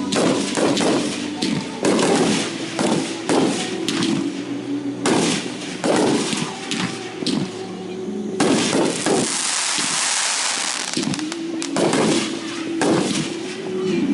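Consumer fireworks going off in a long run of sharp bangs, a dozen or more, with a stretch of hissing crackle about two-thirds of the way through.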